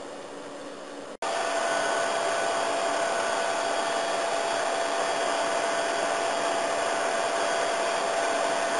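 Steady whoosh of a running computer's cooling fans, with a faint constant whine. About a second in, the sound cuts out for an instant and comes back louder.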